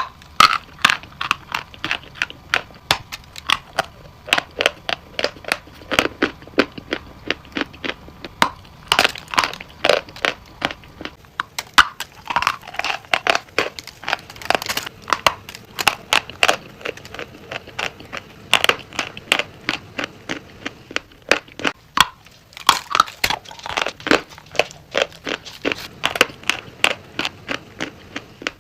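Steady crunching: something brittle being crushed, with many sharp, irregular cracks and crackles several times a second.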